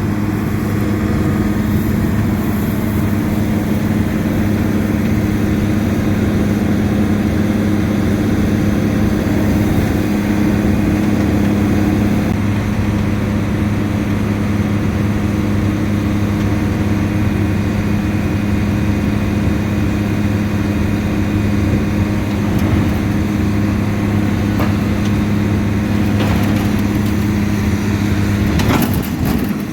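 Combine harvester's diesel engine running steadily with an even, low hum. A short rattle of clicks comes near the end.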